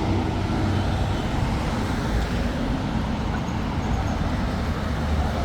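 Steady road traffic on a city street, vehicles going by close with a low engine hum.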